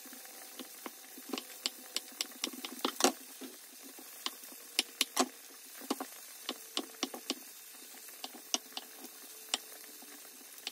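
Chef's knife cutting soft panela cheese into cubes on a wooden cutting board: irregular sharp taps of the blade striking the board, a few each second, the loudest about three seconds in.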